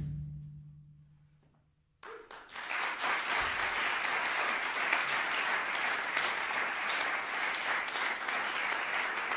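A final low note rings and dies away over the first couple of seconds. After a brief silence, an audience starts applauding about two seconds in and keeps clapping steadily.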